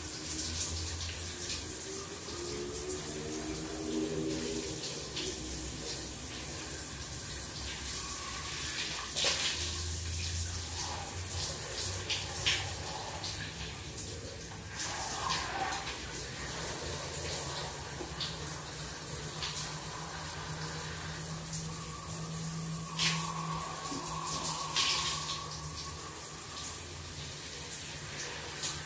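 Shower water running steadily, an even hiss of spray with a few small knocks and rustles as hair is lathered with shampoo.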